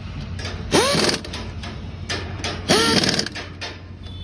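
Pneumatic impact wrench run in two short bursts about two seconds apart, each starting with a rising whine and then rapid hammering, as it runs the wheel nuts onto a tractor's front wheel.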